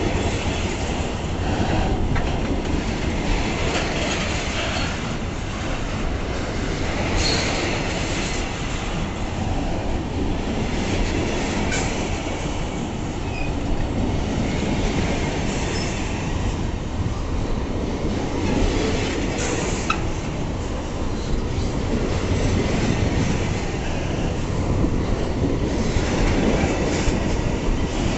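Freight wagons of a long pulp train rolling past close by: a steady rumble and clatter of steel wheels on the rails, with a few sharp clicks.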